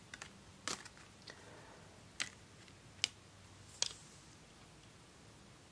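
Tarot cards handled and laid down on a table: about six short, faint clicks and taps spread over the first four seconds as a card is set back into the spread.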